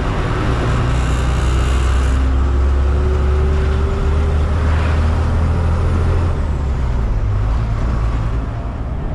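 Tata 1613 container truck's diesel engine running steadily on the road, a deep rumble with road and tyre noise over it.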